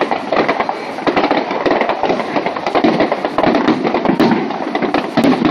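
Fireworks exploding overhead in a rapid, unbroken barrage of many cracks and bangs at a time.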